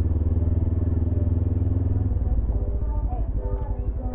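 Suzuki GS500E's air-cooled parallel-twin engine running steadily at low riding speed, its note easing and getting quieter about two seconds in.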